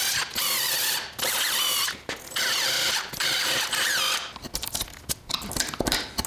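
A power drill-driver run in about five short bursts, driving in the fasteners for steel C-channels on the underside of a wood slab. Scattered light clicks and knocks follow near the end.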